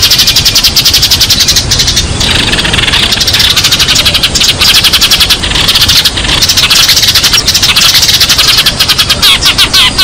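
Sparrows chirping rapidly and without pause, many short overlapping chirps a second: sparrow flock-calling sounds of the kind used as a lure.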